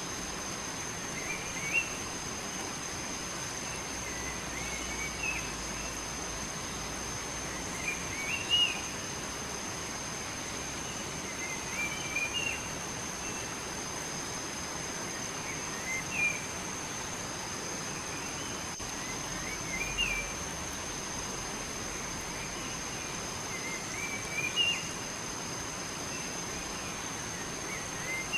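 A bird singing one short warbled phrase over and over, about every three to four seconds, over a steady background hiss and a thin steady high tone.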